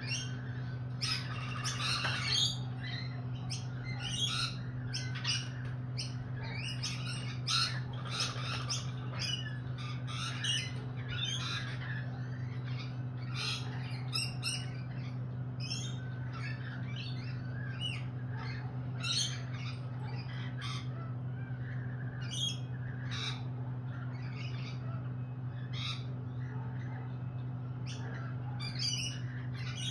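Lorikeets squawking and chattering: a constant string of short, shrill calls, over a steady low hum.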